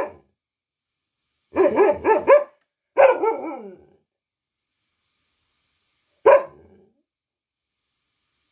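Local-breed dog barking: a quick run of three barks, then a longer bark that falls in pitch and trails off, and a single bark a few seconds later.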